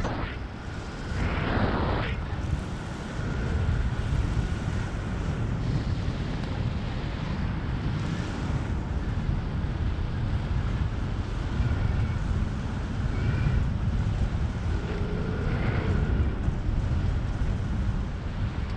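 Steady rush of wind over the microphone from a wingsuit in fast flight, heaviest in the low end, with a faint high whistle that comes and goes.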